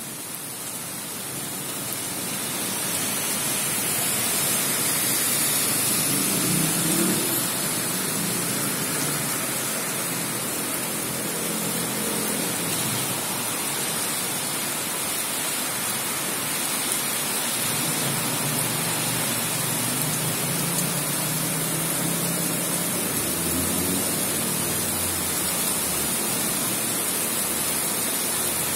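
Steady rain falling on a city street during a thunderstorm: an even hiss that builds over the first few seconds and then holds.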